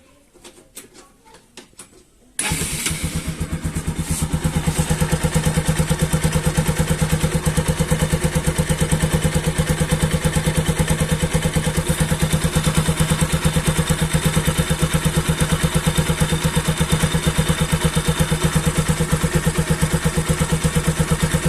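A few light clicks, then about two and a half seconds in the Bajaj NS200's single-cylinder engine starts and settles into a steady idle with an even beat. It idles without the tak-tak knock from the left-side magneto cover, with the faulty one-way starter clutch on that side fixed.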